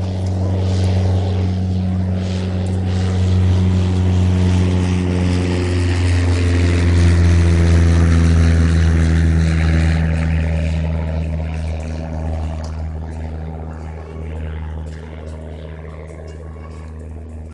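A single-engine propeller airplane passing low overhead: a steady engine drone that grows louder to a peak in the middle, drops slightly in pitch as it goes by, and fades away.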